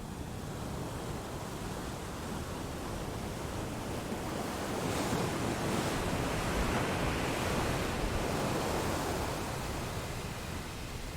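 Rushing noise of surf: a wave swelling over several seconds and easing off again.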